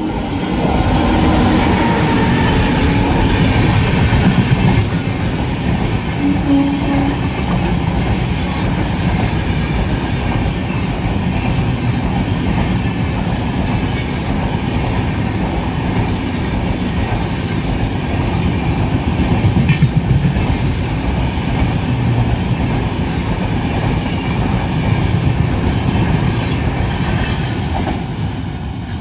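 WAP7 electric locomotive-hauled express train passing close by, the locomotive first and then a long rake of coaches: a steady noise of wheels running on the rails that eases near the end as the last van goes by.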